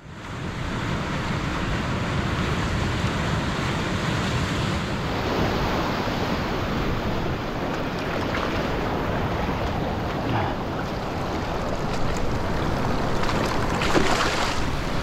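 Sea surf washing and swirling over shoreline rocks, heard close at water level as a steady rush of white water, with a louder splash near the end.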